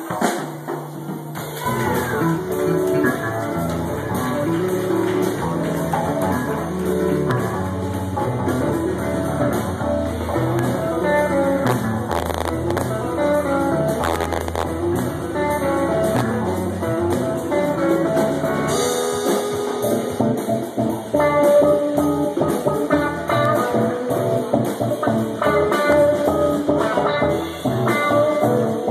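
Live band playing: electric guitar, electric bass, drum kit with cymbals and a hand drum. The sound thins out briefly near the start, then the full band carries on.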